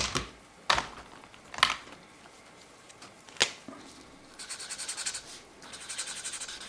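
A few sharp clicks, then felt-tip markers colouring on paper in two quick stretches of rapid back-and-forth scratching strokes.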